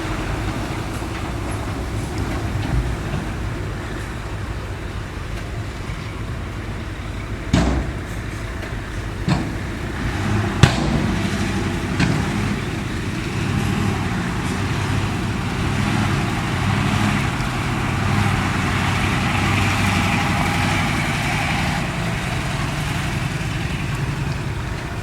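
Diesel engine of a ten-wheel dump truck running under load. Its pitch steps up about ten seconds in, and a few sharp knocks come around the middle.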